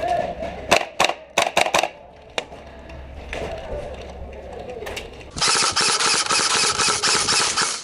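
Airsoft guns firing: a handful of sharp single shots in the first two seconds, then a rapid full-auto burst lasting about two and a half seconds near the end, the loudest part.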